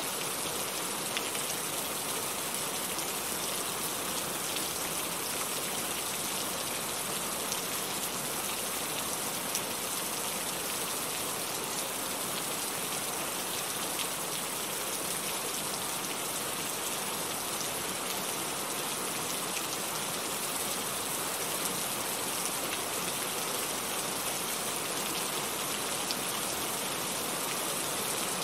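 Heavy rain falling steadily, a constant hiss with scattered faint drop ticks.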